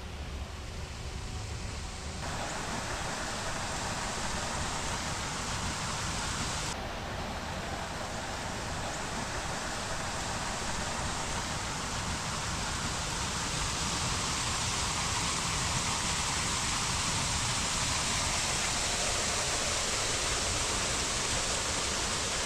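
Waterfall: a steady rush of falling water. It turns brighter in two sudden steps, about two and seven seconds in.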